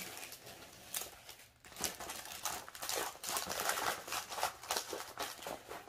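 A large rolled diamond painting canvas being handled and rolled backwards to flatten it: stiff canvas crinkling and rustling in irregular crackles, with a brief lull about a second and a half in.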